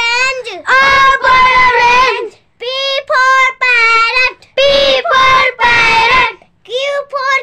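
A child's high voice singing in short, chant-like phrases on a steady pitch, with brief pauses between them.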